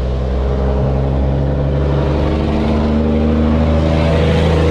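Motorcycle engine running as the bike is ridden along the road. Its pitch steps up about halfway through as it speeds up.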